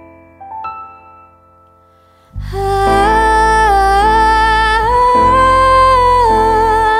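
A live ballad intro: a few soft piano notes, then about two and a half seconds in a wordless sung melody of long held, smoothly gliding notes enters over a full keyboard accompaniment.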